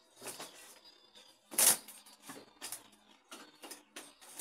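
Handling noises from a PVC bathroom door and its frame: a string of short clicks and rustles, with one sharper knock about a second and a half in.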